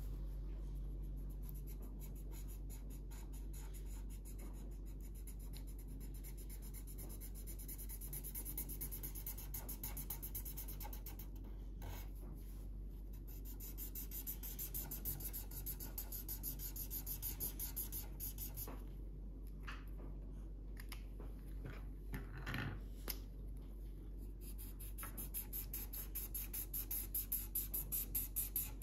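Felt-tip marker scratching on paper in quick back-and-forth colouring strokes. The strokes come in spells with short pauses and are fastest and loudest near the end.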